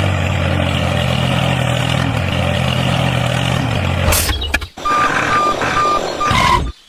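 Truck engine running steadily, then a reversing alarm giving four short beeps about five seconds in.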